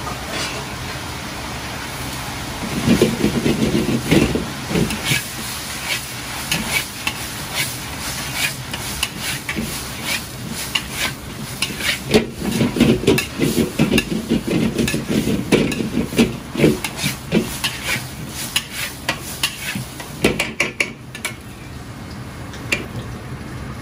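A metal Chinese ladle scraping and clanking against an iron wok as fried chicken and chopped scallions are stir-fried, with the food sizzling. Heavier bouts of tossing and knocking come a few seconds in and again around the middle, over a steady burner roar.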